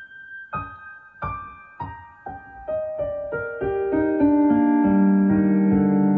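Piano music: single struck notes stepping down in pitch, coming closer together and building into sustained chords that grow louder near the end.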